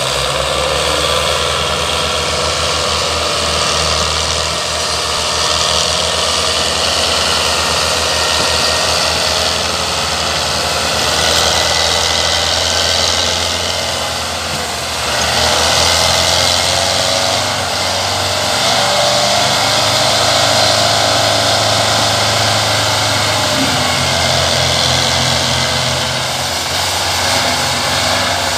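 Tractor diesel engines running steadily under heavy load, a continuous low rumble, while pulling a loaded sugarcane trolley.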